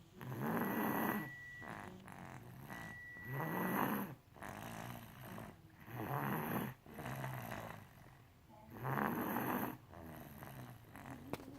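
Snoring: a loud, rasping snore about every three seconds, with softer breaths between. A thin whistle rides over the first two snores.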